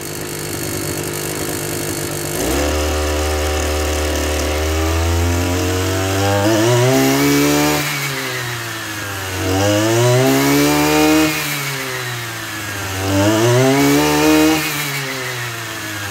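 Maruyama MB3030 backpack brush cutter's 30cc two-stroke engine running. A couple of seconds in its note changes and grows louder, then it revs up and drops back three times.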